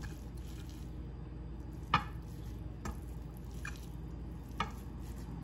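Hands scooping soft fresh chhena (cheese curd) off a ceramic platter, with four light taps against the plate about a second apart, over a steady low room hum.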